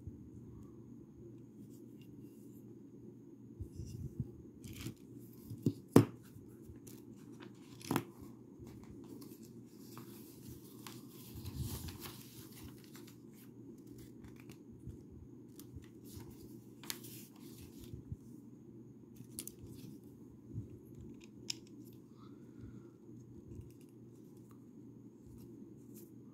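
Lego bricks being handled and pressed together: scattered small clicks, two sharp ones about six and eight seconds in, with a stretch of rustling near the middle.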